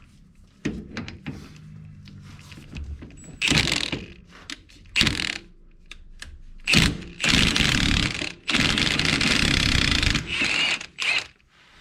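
Impact wrench run in bursts, spinning off the bolts that hold the truck's front axle: several short bursts, then two long runs of about a second and a half each, then a few more short bursts near the end.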